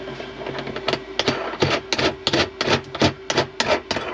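Brass faucet mounting nut being spun up the faucet shank by hand, under a particleboard countertop: a quick run of clicks and scrapes, about three to four a second, starting about a second in.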